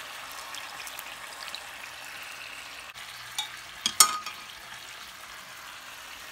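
Chicken pieces sizzling in a hot pan in their just-added soy-sauce marinade, a steady frying hiss. About four seconds in come a few sharp knocks, the loudest as the glass baking dish is set down.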